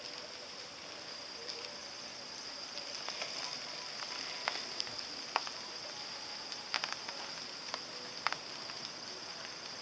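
Light rain falling: a steady hiss with a few sharp ticks scattered through it.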